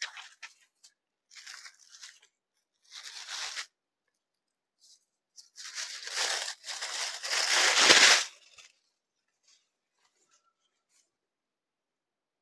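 A printed saree being unfolded and spread out by hand, its fabric rustling and swishing. There are a few short rustles at first, then one long, loudest sweep about six to eight seconds in as the cloth is flung open over the counter.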